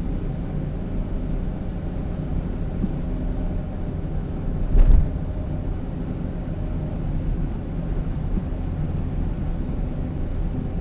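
Driving noise inside a car cabin picked up by a dashcam's microphone: a steady low rumble of road and engine. One brief thump about halfway through is the loudest moment.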